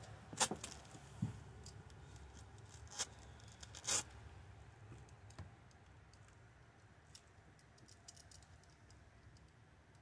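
Hand tools clicking and clinking as a Torx driver and bits are handled and tried on door screws. There are a few sharp clicks in the first four seconds, then quieter scattered ticks.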